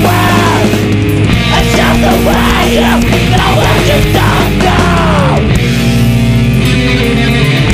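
Loud screamo/hardcore punk recording: distorted guitars, bass and drums under a yelled vocal. The vocal drops out about five and a half seconds in and the band plays on.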